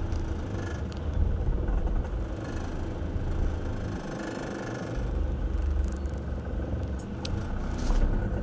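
Steady low rumble of a moving vehicle's engine and road noise heard from inside the cabin, easing briefly about halfway through, with a few faint clicks in the second half.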